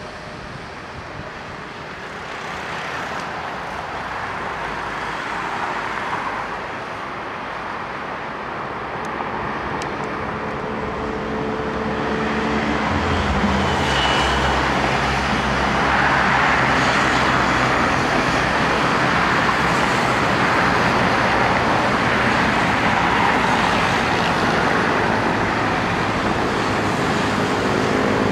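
The turboprop engines and propellers of a small twin-turboprop aircraft landing. The sound grows steadily louder as the plane comes in over the runway, with a low steady drone joining about halfway through, then stays loud as it rolls out after touchdown.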